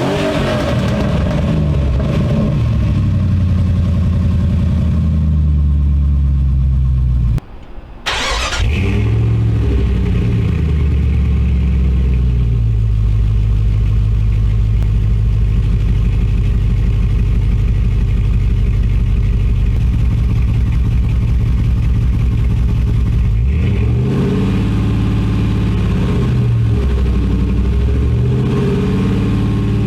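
Jeep Grand Cherokee 4.7-litre V8 running through Tri-Y headers and a Hooker Aero Chamber muffler, settling from revs to a steady idle. The sound breaks off briefly about seven seconds in, and the engine is revved and let back down to idle again near the end.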